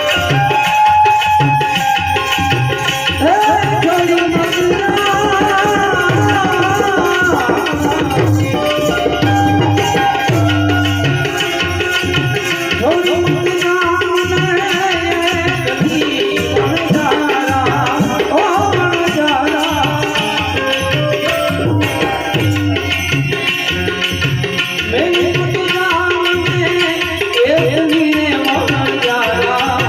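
Gujarati santvani devotional music: tabla keeping a steady rhythm under a wavering melodic line.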